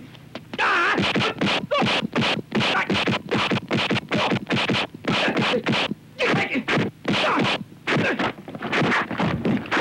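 Rapid run of punch-and-block impact sound effects from a kung fu film fight, about three sharp hits a second, with a few short shouts from the fighters between them.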